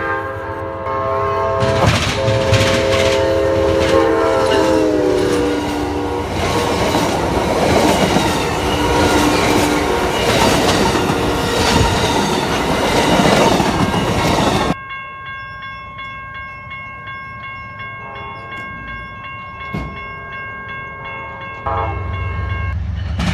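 Amtrak passenger train sounding its horn as it approaches, the horn's pitch dropping as the locomotive passes, then the stainless-steel passenger cars rushing and clattering by. After a sudden change about 15 s in, a railroad crossing bell rings steadily, with a low rumble of an approaching train building near the end.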